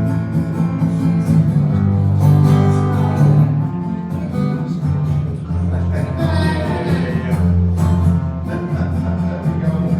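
Country-style acoustic guitar music with steady bass notes that change every second or two; an instrumental passage with no singing.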